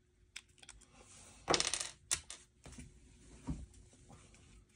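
Small metal pieces clinking: a loose motor magnet knocking against the locomotive's metal chassis and side plate. A short rattling clatter comes about a second and a half in, a sharp click just after, then a few lighter knocks.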